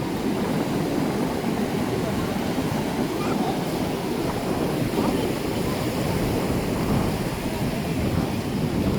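Ocean surf washing steadily on the shore, with wind noise on the microphone and a faint murmur of many distant voices.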